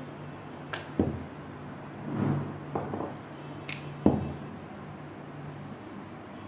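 Rolling pin knocking and rolling on a stone countertop as samosa dough is rolled out: several knocks, the loudest about one and four seconds in, with softer rolling between. A steady low hum underneath.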